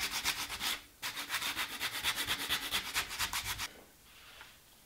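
Sandpaper on a hand-held sanding block rubbed quickly back and forth over balsa wood, several strokes a second. The sanding breaks off briefly about a second in and stops a little before the end.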